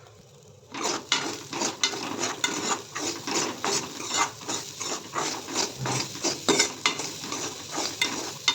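A spoon scraping and stirring dal, onion and spices as they fry in ghee in a kadai. Quick repeated scraping strokes, a few a second, over a steady sizzle, starting about a second in.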